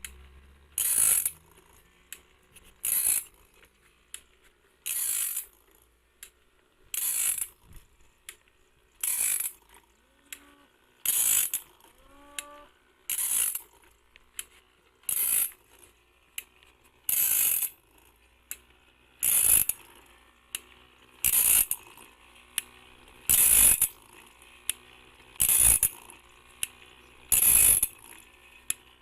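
Automatic bandsaw blade sharpener running its steady cycle: a short grinding hiss about every two seconds as the wheel passes a tooth, with light clicks of the feed mechanism in between.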